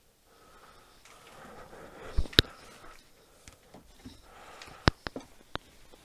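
A person sniffing and breathing close to the microphone, with sharp clicks and knocks: two about two seconds in and three more near the end.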